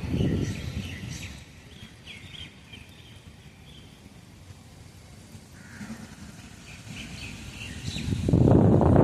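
Gusty storm wind buffeting the microphone, easing off about a second in; during the lull birds chirp, then the wind gusts hard again near the end.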